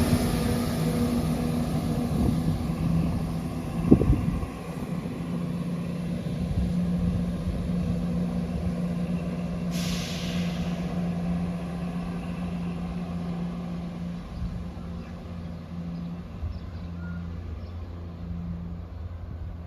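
Diesel engines of a departing ScotRail Class 170 Turbostar multiple unit running with a steady low hum that slowly fades as it pulls away. A thump comes about four seconds in, and a sudden hiss of air about ten seconds in.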